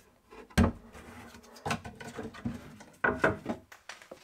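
Knocks and metallic clicks of full-extension ball-bearing drawer slides being handled as a plywood drawer is set onto its runners. A sharp knock about half a second in is the loudest, followed by a few smaller clicking clusters.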